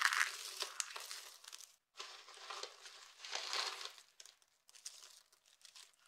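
Dry soap shavings and curls crunching and crinkling as hands squeeze and sift through them, in soft uneven swells. There is a brief silent gap about two seconds in, and only faint scattered crackles near the end.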